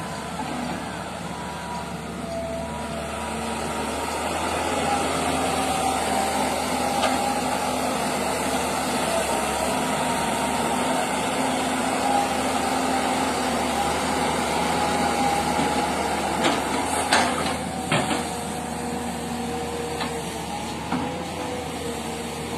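A heavy machine's engine running steadily with a wavering whine, growing louder about four seconds in. A few sharp knocks come near the end.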